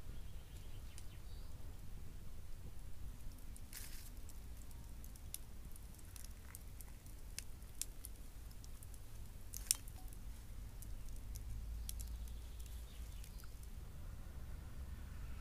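Scattered small clicks and taps, with a brief rustle about four seconds in and one sharper click near ten seconds, over a low steady rumble.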